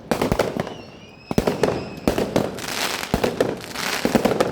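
Fireworks going off: a rapid, irregular series of sharp bangs and crackling bursts, with a brief faint whistle about a second in.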